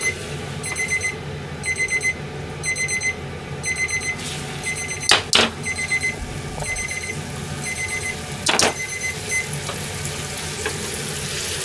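Timer beeping in quick repeated bursts, going off at the end of the gyoza's three-minute steaming time; the beeping stops about six seconds in. A pair of sharp clacks comes about five seconds in and another a few seconds later.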